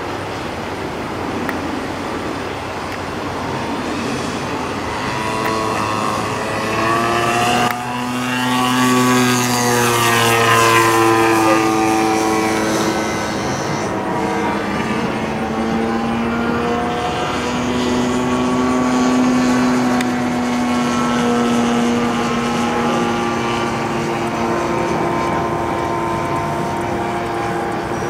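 Engine and propeller of a large radio-controlled Extra 330 aerobatic model plane in flight, the pitch shifting up and down with throttle and manoeuvres. It is loudest about ten seconds in as the plane passes close, with the pitch falling as it goes by.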